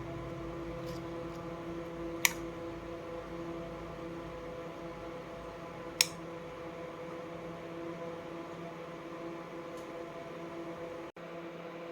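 A steady hum made up of several held tones, with two sharp clicks, about two and six seconds in. The sound cuts out for an instant near the end.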